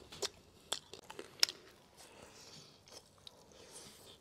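Eating sounds of a person biting and chewing food off a skewer. A few sharp, crisp bites fall in the first second and a half, then quieter chewing follows.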